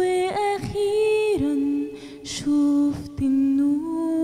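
A woman singing a slow Arabic song solo into a handheld microphone, holding long drawn-out notes that slide from one pitch to the next, with short breaks about a second and a half and three seconds in.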